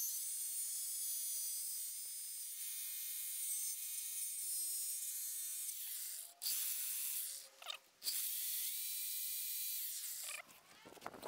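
Hitachi electric jigsaw cutting through a wooden canoe gunwale strip, running with a steady high whine. It drops out briefly about six and eight seconds in and stops shortly before the end.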